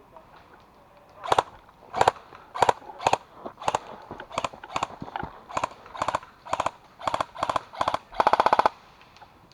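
Airsoft guns firing in short bursts of rapid sharp clicks, about a dozen bursts over several seconds, with a longer burst near the end.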